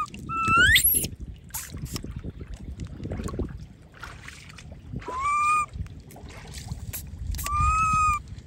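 A baby macaque cries three times in high, clear whimpering calls. The first, near the start, sweeps sharply up into a squeal; the other two come at about five seconds and seven and a half seconds. Low splashing and rustling from the muddy water fill the gaps between calls.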